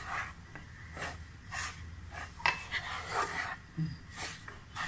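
Spatula stirring and scraping a dry flour mix in a wide steel pan, in irregular strokes about every half second to a second.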